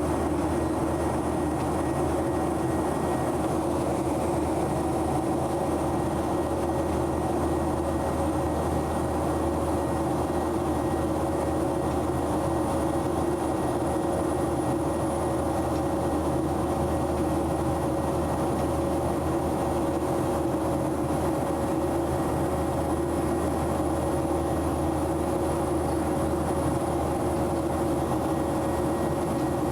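Steady cabin noise of a Boeing 737-900 climbing out after takeoff: its CFM56-7B turbofans and the airflow running as a constant rumble with a steady hum and a thin high whine.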